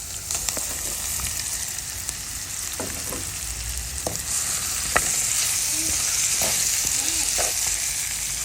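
Mango pieces sizzling as they fry in hot oil, stirred with a spoon that clicks and scrapes against the pan now and then. The sizzle grows louder about halfway through.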